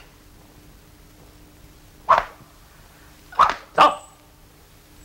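A dog barking three times: one bark about two seconds in, then two close together about a second later.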